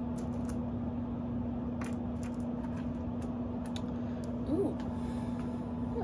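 Faint, scattered clicks of small rocks and crystals being handled and set against one another, over a steady low hum.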